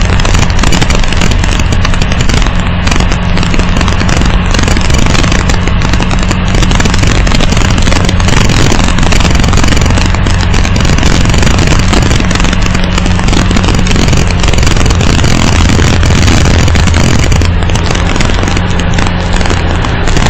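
A vehicle driving over a rough stone road: a loud, steady, distorted noise of engine and road, with a constant low hum.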